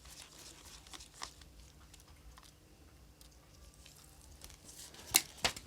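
Quiet handling of a smartphone being taken apart, with scattered light clicks of small tools and parts, and two sharp clicks near the end.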